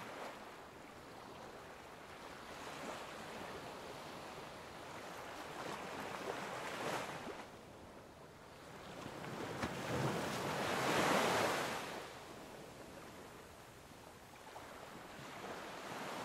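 Sea waves washing in on a pebble and rock shore, swelling and falling every few seconds and loudest about eleven seconds in, with some wind on the microphone.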